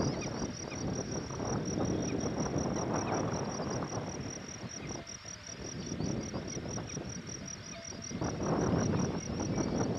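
A steady, fast-pulsing high insect trill, like a cricket's, runs throughout over an uneven rushing noise of wind on the microphone, which eases off about halfway through and picks up again near the end.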